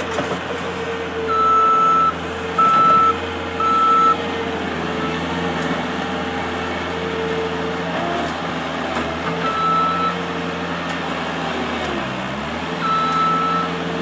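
Bobcat skid steer engine running, its pitch rising and falling as the machine works, with a reversing alarm beeping: three beeps in the first few seconds, one more around the middle and another near the end.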